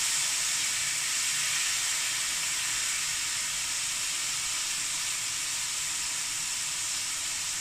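Duck breast frying in hoisin and plum sauce in a non-stick frying pan: a steady sizzle.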